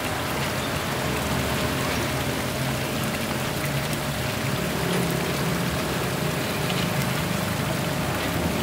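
Small rock waterfall spilling over stone ledges into a koi pond: a steady splashing and gurgling of falling water.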